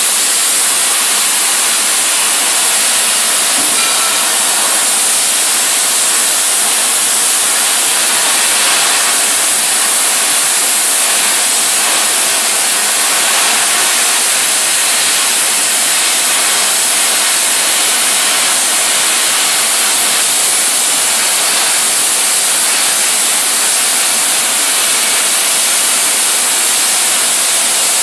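Everlast Power Plasma 50 plasma cutter cutting steel plate: a loud, steady hiss of the arc and compressed-air jet.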